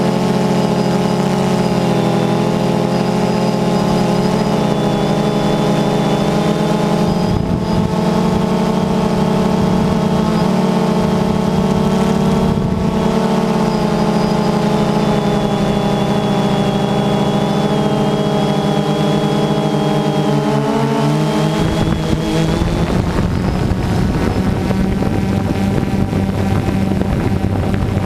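DJI Phantom 2 quadcopter's motors and propellers buzzing steadily in flight, a stack of steady tones that drift slightly up and down in pitch. About 22 seconds in the buzz turns rougher and noisier.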